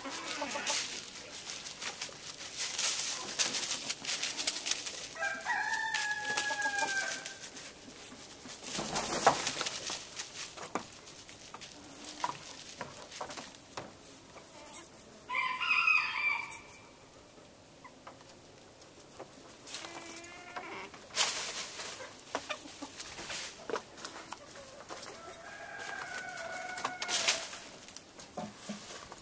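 A rooster crows three times, well spread out, each crow about one and a half to two seconds long; the middle crow is the loudest and highest. In between there is rustling and clicking, as of chickens moving through dry fallen leaves.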